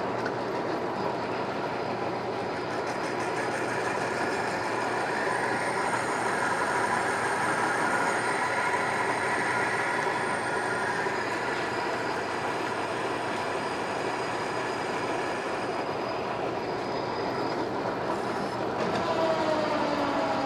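American Pacemaker engine lathe running while a carbide boring bar takes a 0.050-inch cut in a tapered bore: a steady machine and cutting noise with a thin high whine over it. Near the end the bar comes out of the bore and a falling tone comes in.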